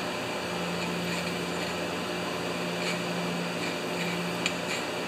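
A steady low background hum, with a few faint light clinks of metal carburetor parts being set into a wire parts basket.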